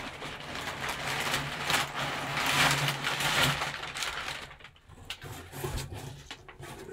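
Brown packing paper crinkling and a fabric drawstring bag rustling as the bag, with a football inside, is pulled out of a box by gloved hands. The rustling is loudest about two to three and a half seconds in, then dies down to a few soft handling clicks.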